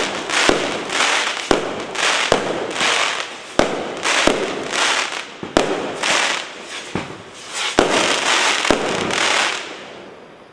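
JF C37 fireworks cake firing its shots in sequence: a sharp report about once a second, each followed by a spray of crackling. The firing dies away near the end.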